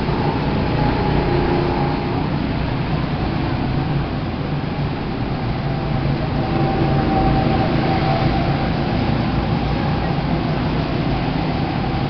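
Go-kart engines droning on the track, with faint drawn-out engine tones over a dense, steady rumble.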